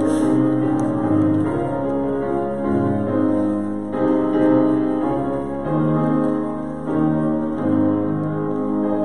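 Piano playing a slow hymn tune in full chords, the chord changing about once a second.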